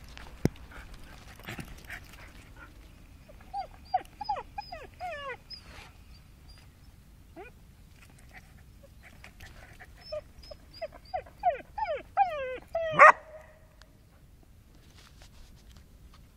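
A dog whining and yelping in short cries that fall in pitch, in two runs of several cries each, the loudest about thirteen seconds in.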